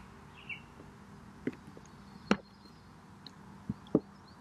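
A few short, sharp plastic clicks and crackles from a plastic dish-soap bottle being squeezed over a cup, the loudest about halfway through. Birds chirp faintly in the background.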